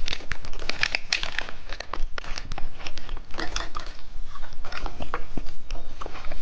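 Plastic candy packaging crinkling and rustling as it is handled and pulled open, a dense run of crackles.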